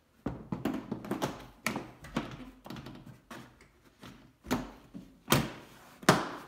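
A carpeted trunk-lid trim panel is being pushed and tapped into place by hand, its push clips snapping into the lid: a run of knocks and taps, with the two hardest hits about five and six seconds in.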